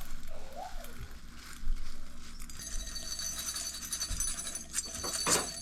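Blender grinding dried garlic into powder, with quick clicking from the dry pieces and a steady motor whine that comes in about two and a half seconds in.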